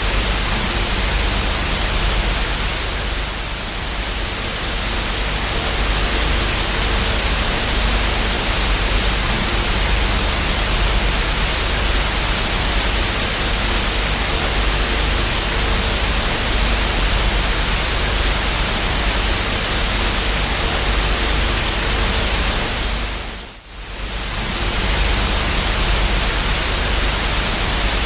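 Analogue TV static: a steady, loud hiss of white noise from a screen with no signal, with a faint hum underneath. Near the end it briefly dips almost out and comes straight back.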